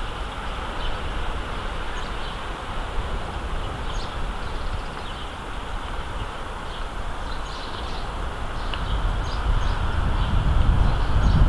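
Wind buffeting the microphone in a low rumble that grows stronger near the end, with scattered short bird chirps over a steady high hiss.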